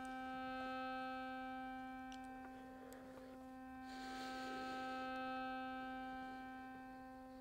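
A faint, steady hum at one unchanging pitch with a stack of overtones. A soft hiss swells in and out about four seconds in.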